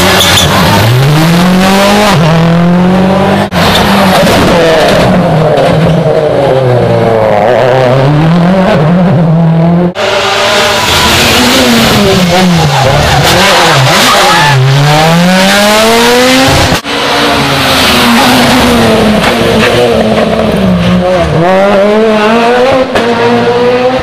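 Competition rally car engines at full throttle, one car after another: the engine pitch repeatedly climbs as each car revs out and drops at each gear change, with abrupt cuts between passes.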